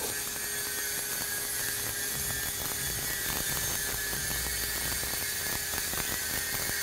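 7018 stick electrode burning in a steady welding arc, with a continuous hiss and fine crackle, while a horizontal fill pass is run on steel plate.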